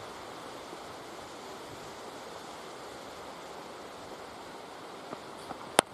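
Steady wind noise on the microphone, then a single sharp crack near the end: a cricket ball being struck as it is delivered to the batsman.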